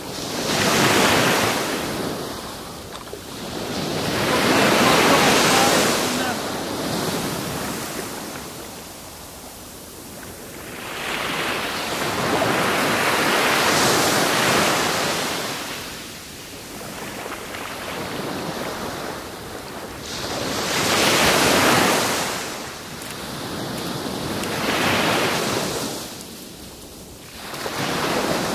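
Small surf breaking and washing up a sandy beach, the hiss of the water rising and falling in surges every few seconds.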